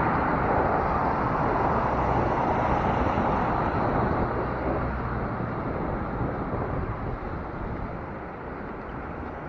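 Steady rushing wind and street noise while riding an electric bike through city traffic, gradually getting quieter toward the end.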